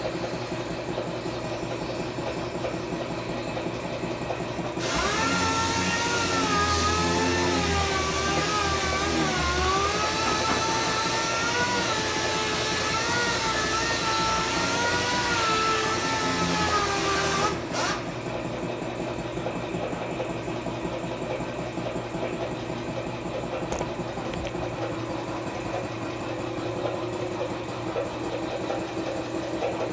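A power tool runs for about thirteen seconds, its whine wavering up and down in pitch as it works, then stops suddenly. A steady machine hum continues underneath throughout.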